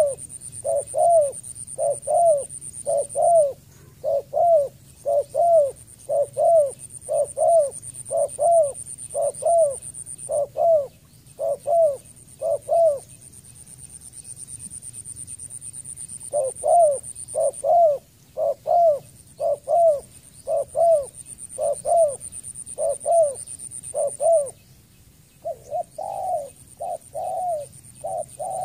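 Spotted dove calling: short cooing notes repeated about twice a second, with a pause of a few seconds about halfway through. A steady high-pitched whine runs behind it, stopping and starting several times.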